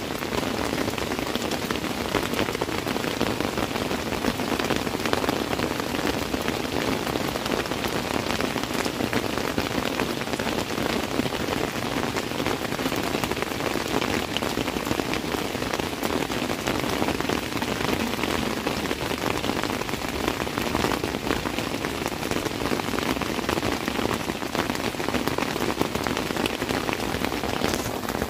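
Steady heavy rain falling on a tent, heard from inside it: a dense, unbroken hiss of countless drop hits on the fabric.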